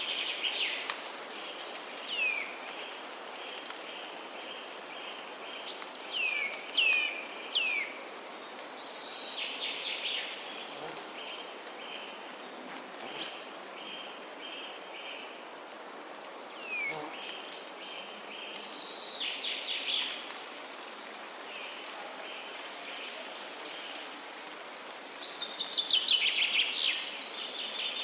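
Birds calling in the open: repeated short whistles that sweep downward, and several bursts of rapid trilled notes, the loudest near the end, over a steady background hiss.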